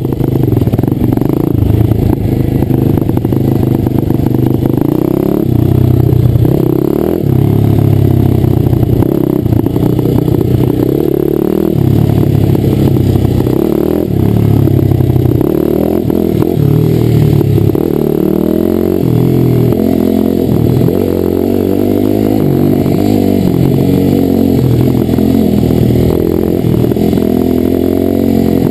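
Pit bike engine running under way, revving up and down as the throttle is worked, its pitch rising and falling every second or two.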